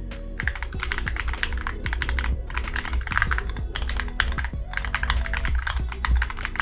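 Typing on an Akko ACR Pro Alice Plus acrylic-case mechanical keyboard: fast runs of key clicks broken by brief pauses, over background music.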